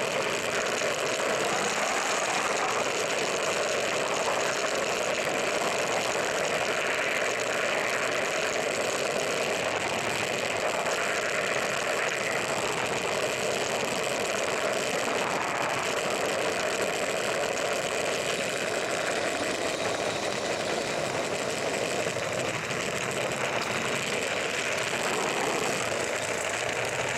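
Small 16mm-scale live-steam garden-railway locomotive running, a steady, unbroken mechanical clatter with hiss.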